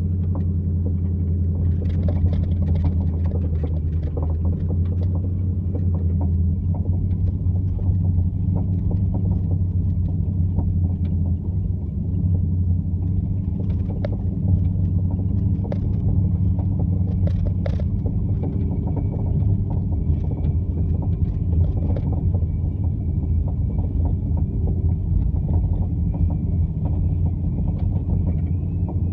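Boat engine running steadily under way, with irregular clunks and knocks heard over its drone: the unwanted clunk noise being shown as a fault.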